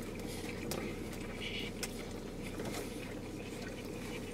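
Chewing and faint wet mouth sounds of people eating burgers, with a few faint clicks, over a steady low hum in a car cabin.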